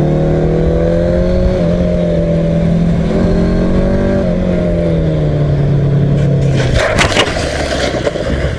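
Yamaha FZX750's inline-four engine running at steady revs, its pitch easing up and down slightly. About seven seconds in, the engine tone gives way to a loud, rough crackling noise with sharp cracks.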